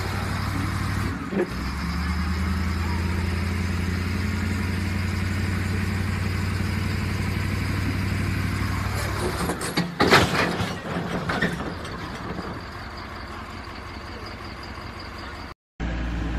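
Diesel engine of a tracked heavy machine running steadily as the machine tips off a lowboy trailer, with a single knock about a second in. About ten seconds in there is a burst of loud metallic clanks and crashes as it comes down. Near the end the sound cuts out and another excavator's engine runs.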